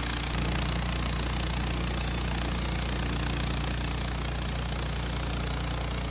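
Engine of a Wood-Mizer LT15 Start portable band sawmill running steadily, with a slight step up in level about a third of a second in.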